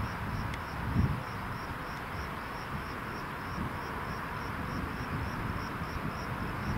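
Electric level-crossing bell (AŽD ZV-02) ringing with an even, high-pitched stroke about three times a second, sounding the warning that a train is approaching.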